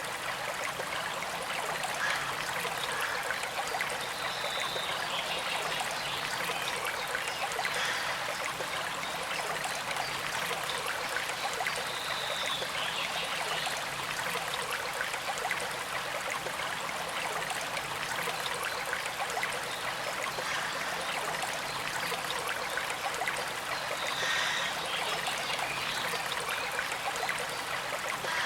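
Small creek flowing steadily, a continuous trickle and rush of running water.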